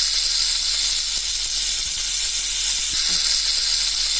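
Rattlesnake rattling its tail: a steady, unbroken dry buzz.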